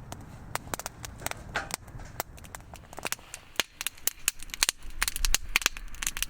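Wood campfire crackling, with many sharp, irregular pops that come thicker in the second half.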